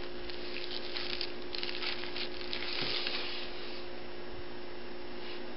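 Scratchy rustling of paper as a kitten paws and wrestles with a hand, in several short bursts over the first three and a half seconds, then quieter; a steady low electrical hum runs underneath.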